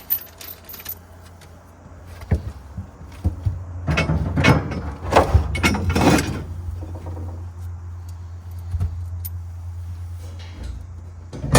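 Metal bolts being hand-threaded into a steel MOLLE panel, with clicks, light knocks and short scrapes of metal on metal as the panel is handled. The clicks and scrapes come thickest in the middle, over a steady low hum.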